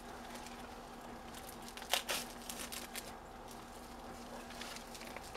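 Plastic packaging crinkling and rustling as it is handled and pulled at, with light scattered crackles and a louder crackle about two seconds in.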